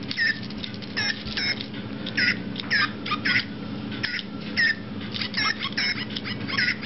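Micro Pets electronic toy animals chirping: a run of short, high, downward-bending squeaks, about two a second, over a steady low hum.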